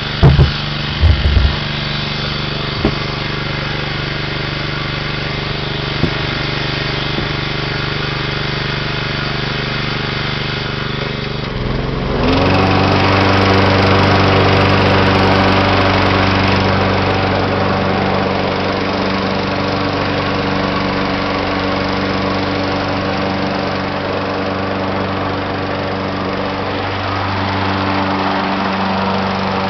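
John Deere 14SE walk-behind mower engine running steadily, with a few knocks in the first second. About twelve seconds in, the engine dips briefly, then picks up to a higher, louder speed and holds there.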